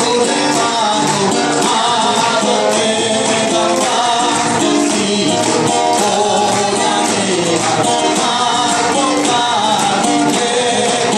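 Live music with singing over a steady percussion beat.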